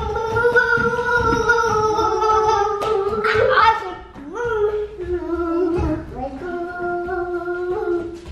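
A young child singing long, drawn-out notes without words: one long held note, a brief rising swoop, then two more held notes, the last one lower.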